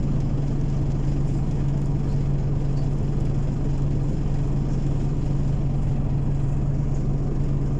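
Scania OmniCity city bus engine idling, heard from inside the passenger cabin: a steady low hum that neither rises nor falls.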